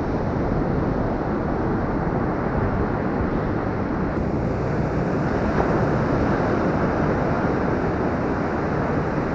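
Ocean surf washing up the beach as a steady rush, with wind buffeting the microphone.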